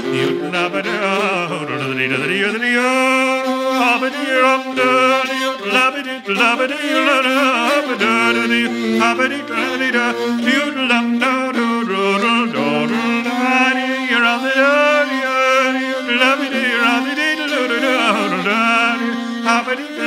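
Traditional Irish music: a bowed fiddle plays an ornamented melody over a steady held drone note, with a man singing along.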